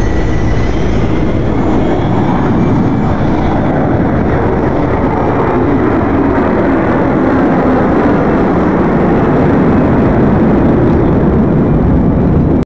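Steady, loud jet aircraft noise: a dense, even rumble with no distinct tones.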